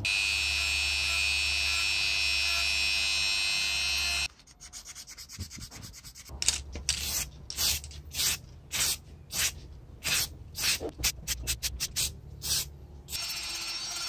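A handheld rotary tool runs with a steady whine for about four seconds and cuts off abruptly. A run of uneven hand-rubbing strokes follows, roughly one or two a second. Near the end the rotary tool with a sanding drum starts again, grinding on the rusty metal of a typewriter part.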